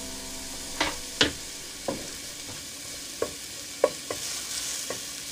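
Wooden spatula stirring chopped onions in a nonstick pan, knocking sharply against the pan about seven times, over a steady sizzle of the onions frying.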